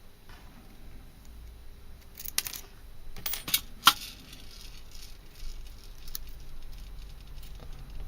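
Small hard clicks and rattles from handling the aluminium flashlight and its metal pocket clip while fitting the clip. They are scattered, with a cluster of sharp clicks about two to four seconds in, the loudest just before the four-second mark.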